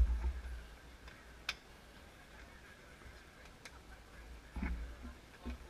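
A few sparse, sharp clicks from road bikes and cleated cycling shoes among a group of riders standing and waiting, with a low rumble on the microphone near the start.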